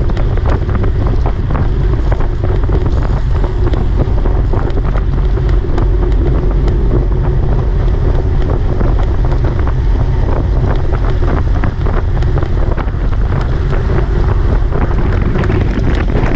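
Heavy wind noise buffeting the microphone: a loud, steady low rumble with many small clicks and rattles mixed in.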